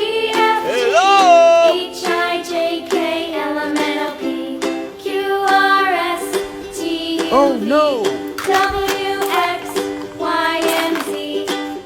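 Children's background music with a plucked, ukulele-like melody, with swooping pitch glides about a second in and again past the middle.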